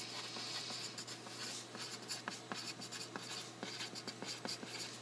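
Wooden pencil writing on a paper worksheet: a run of short, quick scratching strokes of graphite on paper, faint.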